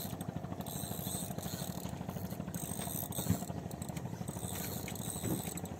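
Fishing boat's engine running steadily with a fast, even low throb, and a brief thump about three seconds in.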